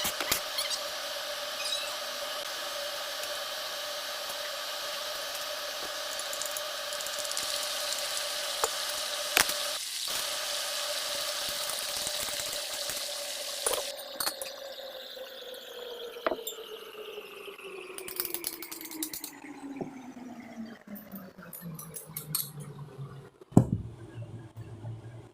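A motor-like hum holding a steady pitch, then sliding slowly down in pitch over about nine seconds as it winds down, with a few clicks and one sharp knock near the end.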